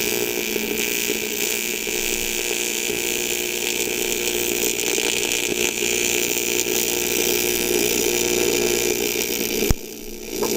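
AC TIG welding arc on a cast aluminium oil sump: a steady buzzing hiss that lasts about ten seconds and cuts off sharply near the end.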